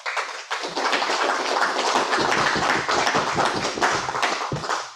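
Congregation applauding, many hands clapping at once, dying away near the end.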